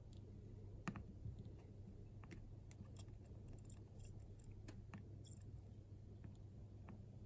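Faint, scattered ticks and crackles from a TS-100 soldering iron's TS-K tip working along the fluxed pins of a TSOP44 chip, over a low steady hum.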